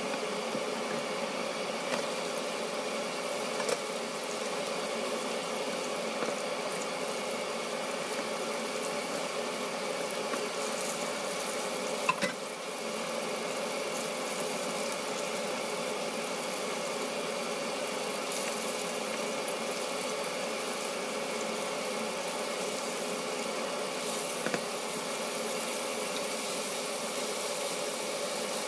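Chicken pieces deep-frying in a pot of hot oil: steady sizzling and bubbling over a steady hum, with a few brief clicks, the loudest about twelve seconds in.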